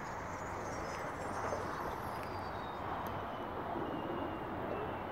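Faint high whine of a Virage F5B hotliner's geared electric motor and carbon folding propeller, falling slowly in pitch, over a steady background rush.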